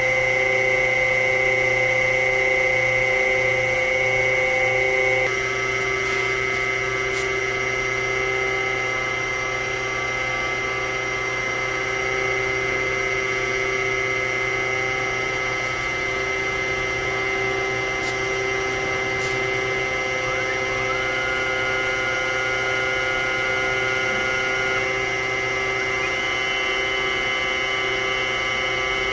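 Harig EZ Surf II CNC surface grinder running, a steady hum of several motor tones. The tones change as the machine shifts operation: some drop out about five seconds in, a higher whine rises and holds from about twenty seconds, and another tone steps up near the end.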